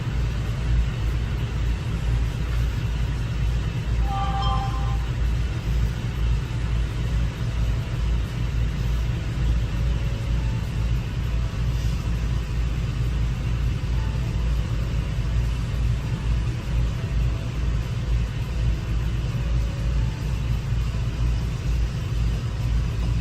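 Steady low rumble of a car driving along a road, with engine and tyre noise and no change in speed. A brief pitched tone sounds about four seconds in.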